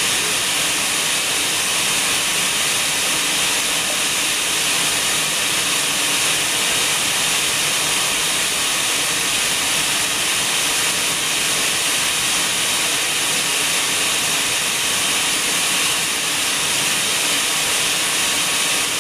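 A steady, loud hiss with no breaks or changes.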